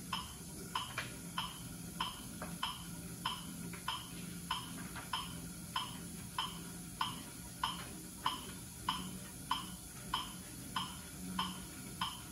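Metronome ticking steadily, about 100 beats a minute, setting the pedalling cadence of 50 RPM on a cycle ergometer during a submaximal exercise test. A faint low hum lies underneath.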